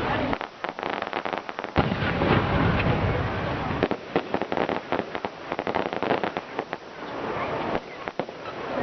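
Fireworks display with many rapid crackles and pops, heaviest in the first two seconds and again around four to six seconds in. A loud bang comes about two seconds in.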